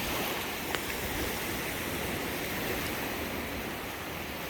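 Small Gulf of Mexico waves washing steadily onto the beach, a continuous surf wash, with one brief click just under a second in.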